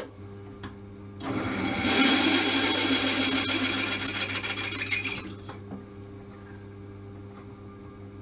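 Benchtop drill press running with a steady motor hum. About a second in, the bit cuts into a stainless steel bracket for about four seconds, a loud metal-cutting noise with a steady high squeal, then the motor runs on unloaded.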